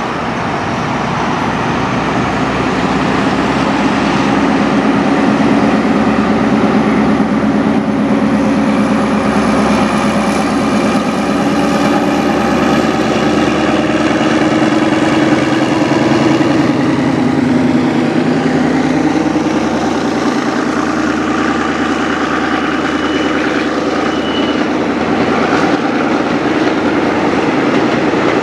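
Diesel locomotive engine running as it hauls a passenger train past, a steady drone whose pitch drops a little about two-thirds of the way through as it goes by. The coaches then roll past close by.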